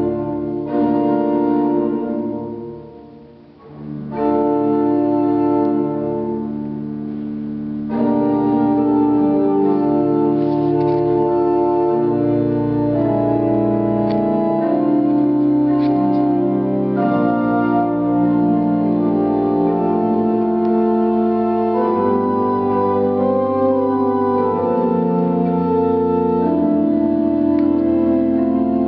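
Church pipe organ playing held chords that change every second or so. The sound dies away briefly a few seconds in, comes back softer, and grows fuller from about eight seconds in.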